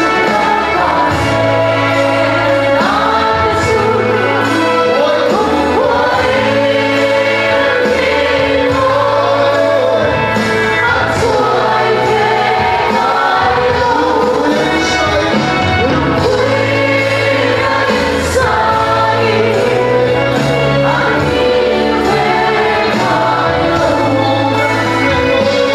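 Congregation singing a gospel worship song together with live band accompaniment, with a steady bass line underneath.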